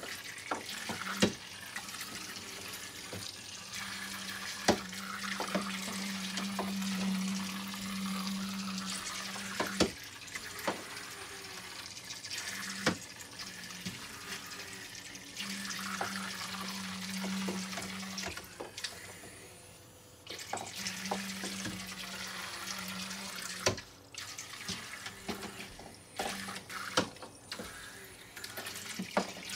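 Zuru Micro Boats toy speedboats running in a plastic water track, their propellers churning and splashing the water. A small battery motor's low buzz comes and goes in stretches of a few seconds, with sharp clicks as the boats knock against the plastic track.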